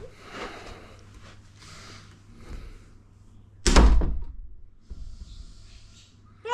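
A door pushed shut with one loud thunk a little past halfway, as the newly fitted handle and latch are tested. Fainter handling noises come before it.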